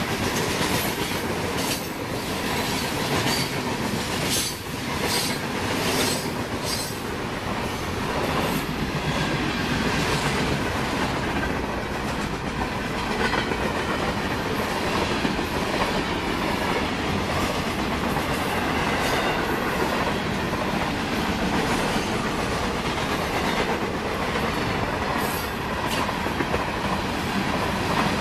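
Freight cars of a CSX freight train rolling past, a steady rumble and clatter of steel wheels on rail, with repeated clicks over the first few seconds as wheels cross joints.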